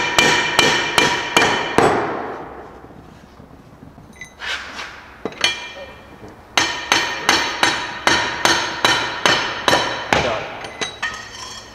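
A hammer striking steel, first a bolt threaded into a mower deck spindle shaft and then a punch held on the spindle, to drive the shaft down out of the pulley. Blows come about three a second, each with a metallic ring. They stop for about two seconds, then a couple of single hits follow, then another steady run of blows and a few lighter taps near the end.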